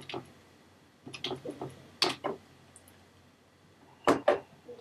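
Keys being pressed on a keyboard: scattered sharp clicks, a quick cluster about a second in, a single loud click about two seconds in, and two more near the end.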